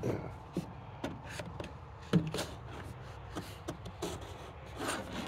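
A folding pocketknife cutting open a knife's packaging: scattered clicks and scrapes, with one sharper click about two seconds in and a scraping stretch near the end.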